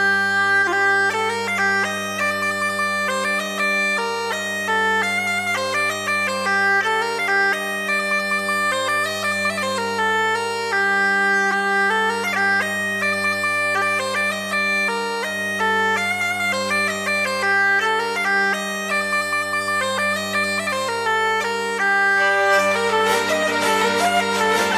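A French/Breton folk tune played live on a drone instrument: a melody with quick ornaments over a steady low drone. The sound grows fuller near the end.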